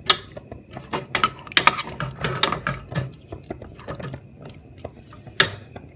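A utensil stirring chunky beef stew with potatoes and carrots in a pot, knocking and scraping against the pot in irregular clacks, with one sharper knock near the end.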